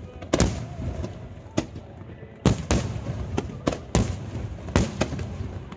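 Aerial firework shells bursting in an irregular string of about a dozen sharp bangs, each trailing off in a short echo.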